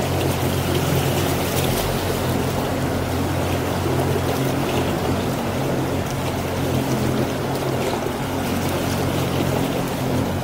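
Motorboat engine running steadily at constant speed, a low even hum, with water rushing along the hull.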